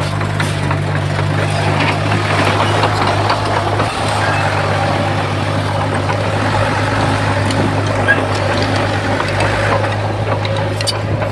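Heavy diesel earthmoving machinery running steadily: a constant low engine drone under a broad, noisy rumble.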